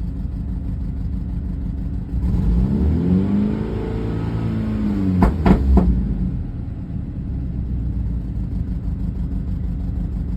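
BMW N26 2.0-litre turbocharged four-cylinder engine running at idle. About two seconds in it is revved once, the pitch rising and falling back to idle near six seconds, with a few sharp clicks as the revs come down. The engine has a cylinder 3 misfire (code P0303), and the sound is offered as the sign of low compression.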